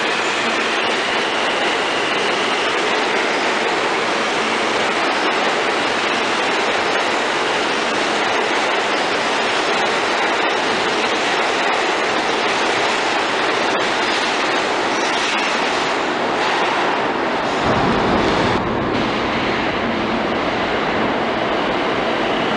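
New York City subway train running past an underground platform, a steady rumble and rattle of its steel wheels on the track. About 18 seconds in, a brief heavier low rumble comes, and after it the train noise is duller.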